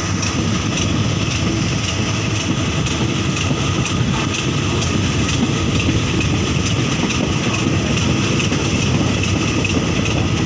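Diesel-hauled passenger train moving along at low speed, with the heavy engine running and the wheels clicking regularly over the rails.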